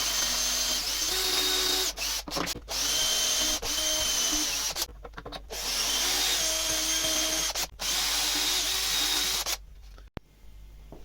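Power drill with an 8 mm wood bit boring dowel holes into 18 mm MDF through a dowel jig. The motor runs in about four spells with short pauses between them, its whine shifting in pitch as it loads, and stops near the end.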